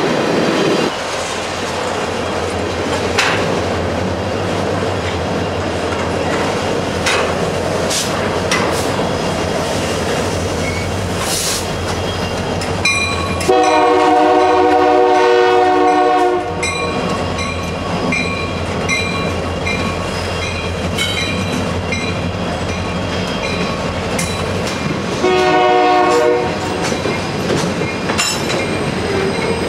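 Empty crude-oil tank cars rolling past with steady wheel clatter and clicking over rail joints. A Union Pacific SD70M diesel locomotive sounds its multi-chime air horn: one long blast about halfway through and a shorter one near the end.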